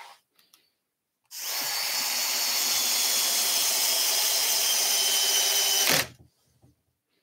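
Cordless drill-driver running steadily for about five seconds, working into the pine chair frame. It starts about a second in and cuts off sharply near the end.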